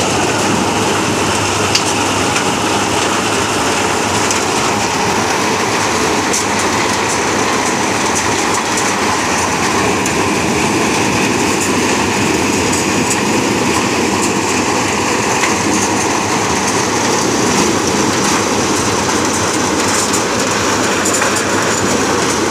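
Manku maize thresher running steadily while threshing maize, driven by the tractor beside it: a loud, continuous mechanical noise with no pause.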